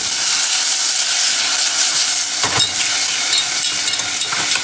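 Diced tomatoes sizzling in hot oil with fried garlic in a stainless steel saucepan, shaken and stirred with chopsticks, with one sharp knock of the pan or chopsticks about two and a half seconds in.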